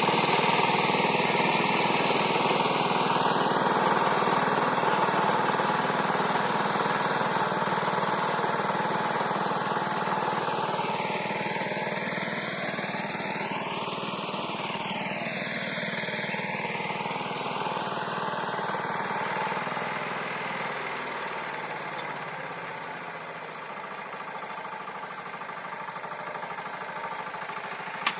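Walk-behind tractor engine running steadily while its rotary tiller works the garden soil, growing fainter over most of the stretch.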